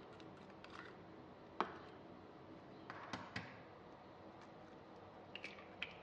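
Quiet kitchen handling sounds: scattered light taps and clicks, the sharpest about a second and a half in, with a couple of small cracks near the end as an egg is broken open over a plastic bowl.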